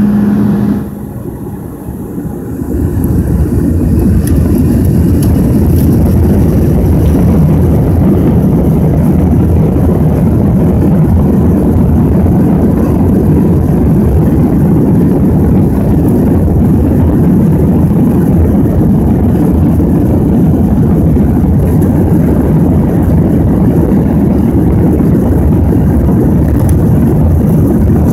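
Boeing 737-400's CFM56 turbofan engines heard from inside the cabin over the wing. After a quieter first couple of seconds the noise swells, within about a second, to a loud, steady low noise as the engines run at takeoff power during the takeoff roll.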